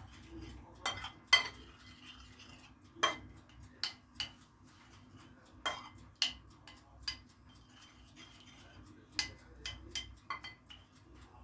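Metal spoon stirring yogurt mixed with melted ghee, butter and oil in a ceramic plate. It clinks against the plate in about a dozen light, irregular taps.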